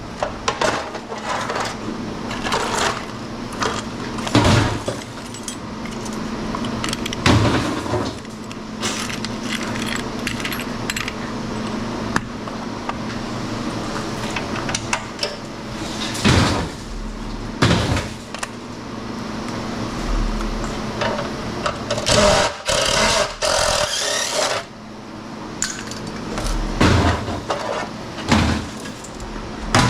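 Scrap metal from old light fixtures clanking and knocking as the pieces are handled and tossed, irregular impacts over a steady low hum.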